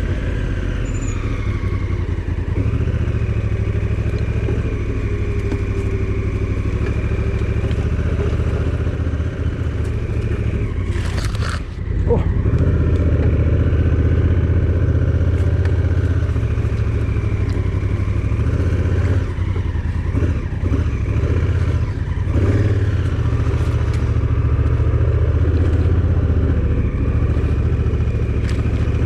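A vehicle driving steadily, its engine running with a constant low drone, with clattering and scraping over the top and a brief rushing scrape about eleven seconds in.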